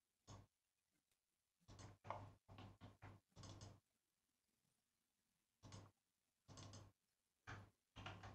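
Faint computer mouse and keyboard clicks: about ten short bursts, bunched around two to three seconds in and again near the end, each with a low hum under it.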